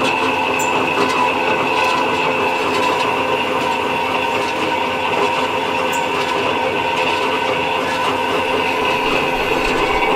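Marvel Mark 8 vertical metal-cutting bandsaw running and cutting under its automatic gravity-weight feed: a steady whine and rasp of the blade working through the stock.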